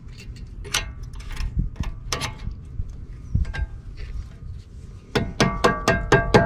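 Metal-on-metal tapping while the retaining pin is worked into a Brembo brake caliper: a few scattered clinks, then about five seconds in a quick run of ringing taps, about five a second.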